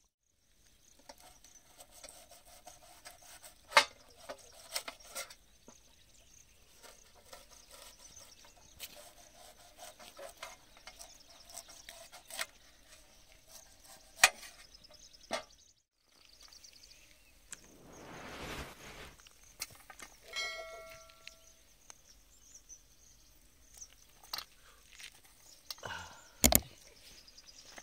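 Knife slicing an onion against a steel plate: faint cutting sounds with a few sharp clicks of the blade on the metal. Later there is a short chirping call about twenty seconds in and a knock near the end.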